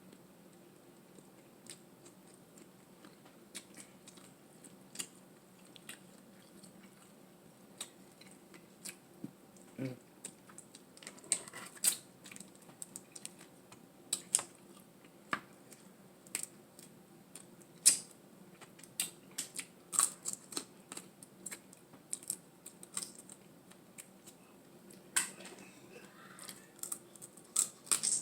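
Dungeness crab shell being cracked and picked apart by hand: irregular sharp clicks and snaps, sparse at first and coming thick and fast in the second half, with some eating sounds.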